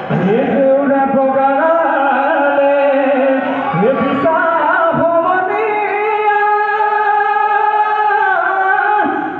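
Husori (Bihu) song being sung, in long held notes, with phrases sliding up into their pitch.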